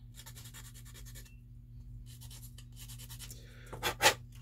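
Quick scratchy back-and-forth strokes of a small sanding stick on plastic scale-model parts, trimming the edges smooth, in two runs of about a second each. Two sharp taps close together near the end are the loudest sounds.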